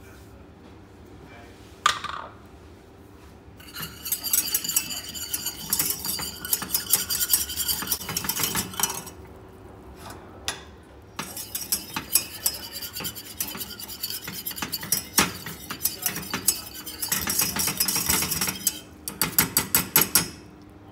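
Wire whisk clinking fast against the inside of a stainless steel saucepan, stirring rice vinegar, sweetener and salt until the powder dissolves. A single sharp clink about two seconds in, then two long spells of rapid clinking with a short pause between them.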